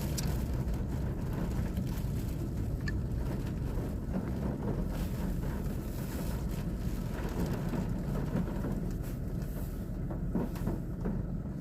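Steady low rumble inside a car's cabin, with a few faint ticks.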